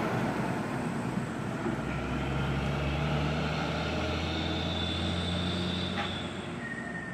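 Diesel tanker truck engines on the road. The truck that has just passed fades off, then another tanker truck's engine drones steadily as it crosses the bridge and pulls away, growing quieter about six and a half seconds in.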